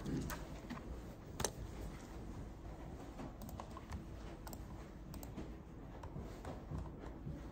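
Irregular clicks and taps of a computer mouse and keys at a laptop desk, with one louder click about a second and a half in.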